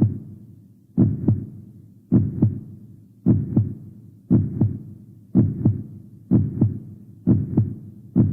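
Heartbeat sound effect: a steady lub-dub of paired low thumps, a little under one beat a second, each beat trailing off briefly.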